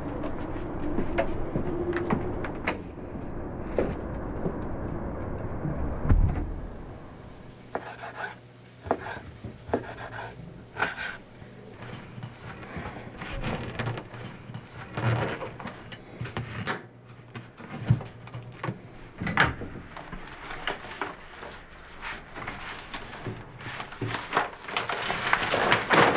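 Household handling sounds: a low steady rumble that ends in a thump about six seconds in, then scattered light knocks and clicks, with a knife sawing through a loaf of bread midway and paper rustling loudly near the end as newspapers are handled.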